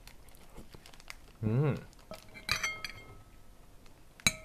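Metal spoon and chopsticks clinking and scraping against a ceramic bowl during a meal, with two sharp ringing clinks, one about two and a half seconds in and one near the end, among small clicks. A brief voiced murmur about a second and a half in.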